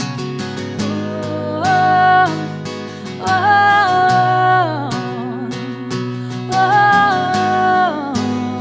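Strummed acoustic guitar with a woman's voice singing three long held notes over it, each note gliding down at its end.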